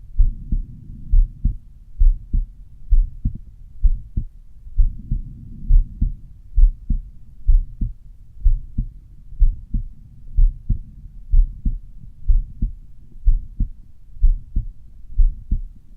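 Human heartbeat heard at the pulmonic area of the chest: a steady lub-dub of sharp low thuds, a bit under one and a half beats a second. A soft low rushing noise fills the gaps between beats near the start and again about five seconds in.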